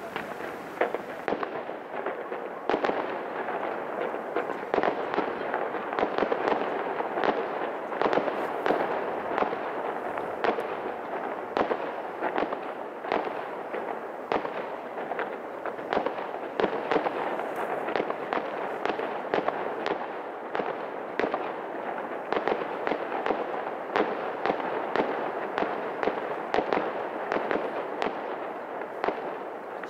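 Aerial fireworks bursting in a fast, continuous barrage: many sharp bangs and crackles every second over a steady rushing background.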